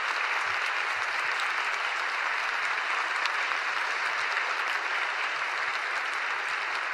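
Large audience applauding steadily, a dense even clapping.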